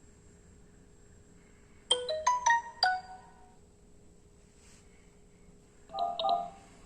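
Small electronic speaker sounding a quick chime of about five stepped electronic notes about two seconds in, then two short beeps near the end.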